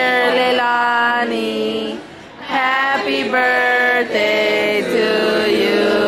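A group of voices singing a birthday song together in long held notes, with a short pause about two seconds in.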